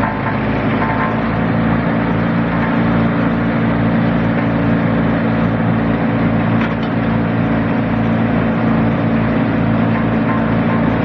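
Small engine running steadily at an even speed, with a regular low pulsing.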